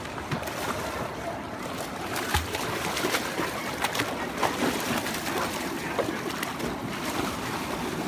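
Water splashing and sloshing around a dog swimming through shallow water, a continual wash dotted with many small sharp splashes.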